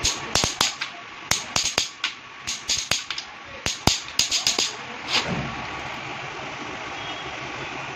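Socket ratchet clicking in short quick runs as it is swung back and forth on the engine's bearing cap bolts, stopping after about four and a half seconds.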